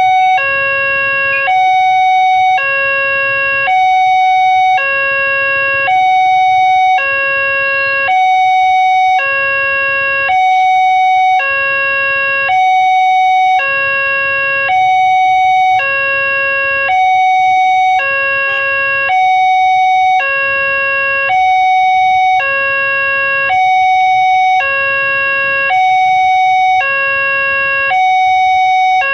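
Railway level-crossing warning alarm from the signal post's loudspeaker: an electronic two-tone sound, a lower and a higher tone alternating about every 0.7 seconds, repeating steadily. It sounds while the crossing is closed for an approaching train.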